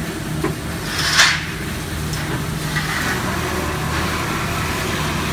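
Industrial horizontal bandsaw running with a steady hum as its blade feeds down into a bundle of flat metal bars. There is a short hiss about a second in.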